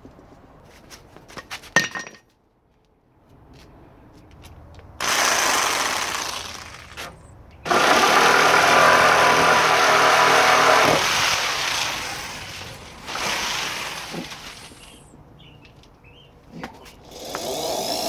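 Power tool working on wood in several bursts: a short run, then a longer, louder one of about three seconds, a brief one, and another starting near the end. A few sharp taps come before them.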